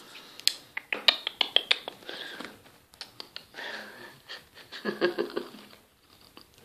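Rapid scratchy clicks and rustling close to the microphone, with a few short, soft vocal sounds.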